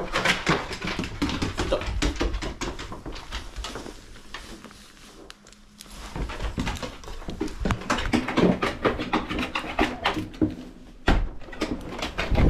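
A Dalmatian breathing close to the camera on its back as it moves around. Many quick clicks and rattles come from its collar and leash hardware, quieter for a moment midway.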